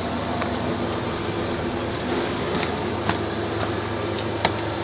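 Steady low mechanical hum, with a few sharp clicks and knocks as suitcases and bags are handled at an open car boot.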